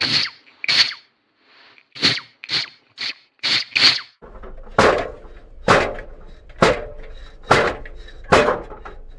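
A run of sharp whacks at uneven intervals. About four seconds in it switches to a steady series of heavy thunks, roughly one a second, over a low hum.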